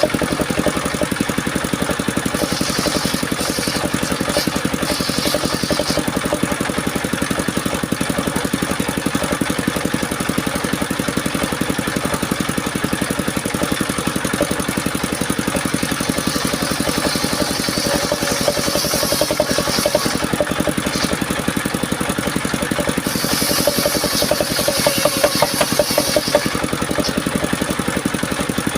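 Engine of a homemade mobile circular-saw sawmill running steadily under power, with stretches of higher-pitched hiss coming and going over it.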